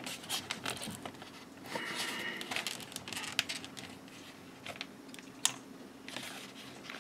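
Irregular small clicks, taps and rustles as hands handle Gaahleri GHAD-39 airbrush parts in the kit's foam-lined case, with a faint steady hum underneath.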